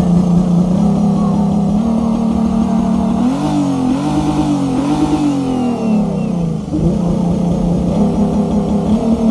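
Car engine held at high revs during a spinning display, pitch surging up and down a few times in the middle before settling back to a steady high rev.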